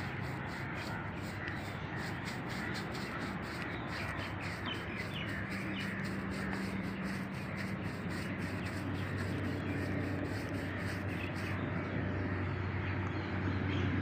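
Paintbrush scrubbing paint onto a textured fibreglass sculpture in quick, even strokes, about five a second, stopping near the end. A low steady hum comes in about halfway through.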